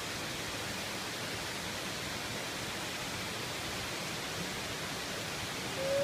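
Steady rush of a small mountain stream cascading over boulders.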